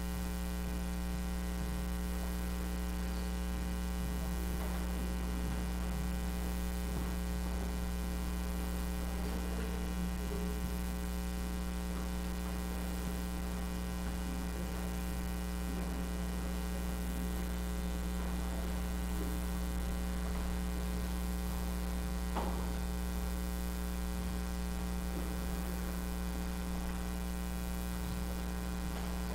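Steady electrical mains hum with a fixed low pitch, under a few faint soft knocks and one sharper click about 22 seconds in.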